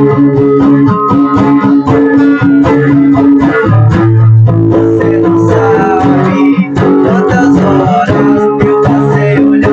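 Acoustic guitar run through an overdrive effect, chords played in a steady rhythm of repeated strokes, recorded through a computer webcam microphone.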